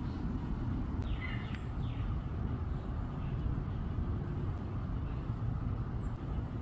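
Steady low rumble of outdoor background noise, with a few faint high chirps about a second in and again near the end.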